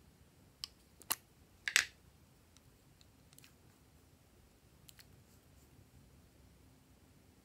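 Plastic lipstick cases being uncapped: a few sharp clicks in the first two seconds as the caps come off, the loudest just before two seconds in, then a few faint clicks.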